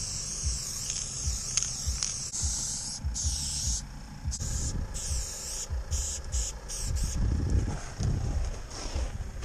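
Aerosol spray-paint can hissing in repeated bursts that stop and start several times as paint goes onto the wall, over low rumbling and thumps on the microphone.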